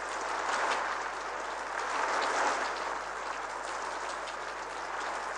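Heavy rain pouring down: a steady hiss with the patter of individual drops, swelling slightly twice.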